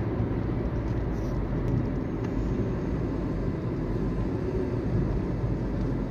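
Steady low road and engine noise inside a Toyota Corolla's cabin while driving, holding level throughout.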